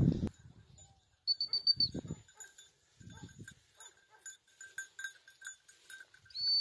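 Two blasts on a dog-training whistle, each a single steady high note: a short one about a second in and a longer, louder one near the end. Between them comes a faint, evenly repeating tinkle of a small bell.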